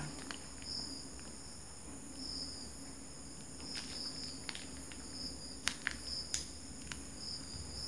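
Faint, even insect chirping, short chirps about once a second in the room tone. A few sharp crinkles of paper being handled come around the middle.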